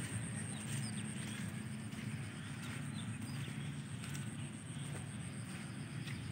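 Outdoor ambience: a steady low rumble with faint, scattered bird chirps and a few light clicks.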